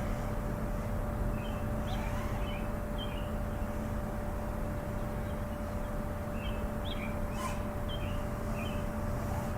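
Small birds chirping in two short spells, about a second in and again past the middle, over a steady outdoor background with a constant low hum.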